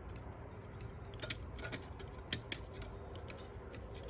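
A few faint, light metallic clicks of transmission clutch plates being handled and set into a 4L60E clutch drum while the pack is stacked, over a low steady hum.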